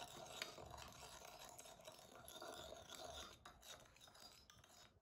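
Faint scraping of a porcelain spoon stirring a thin sauce in a ceramic bowl, with a few light ticks of spoon on bowl; it dies away after about three seconds.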